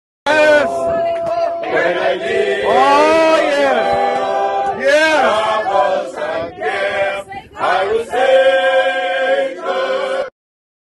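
A group of voices singing a slow gospel hymn together in long held notes. It starts suddenly and cuts off abruptly near the end.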